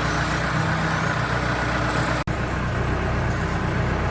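An engine running steadily at a constant pitch, with a brief break a little over two seconds in.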